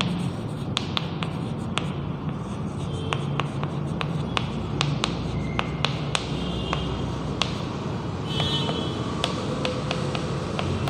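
Chalk writing on a chalkboard: sharp taps and scratches of the chalk as the letters are formed, with a few short high squeaks. A steady low hum runs underneath.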